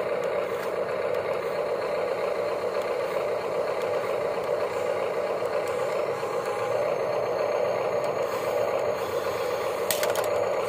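Toy RC excavator's small electric gear motors whirring steadily as the arm and bucket move. Near the end there is a brief plastic clatter as toy cars tip from the bucket into the RC dump truck's bed.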